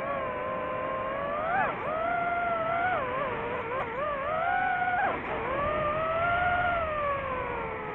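DJI FPV drone's electric motors and propellers whining, the pitch rising and falling smoothly as the throttle changes, with sharp dips about one and a half seconds in and again about five seconds in.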